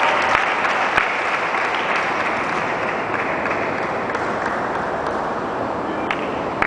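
Spectators applauding between points, the clapping slowly dying away, with a couple of sharp clicks.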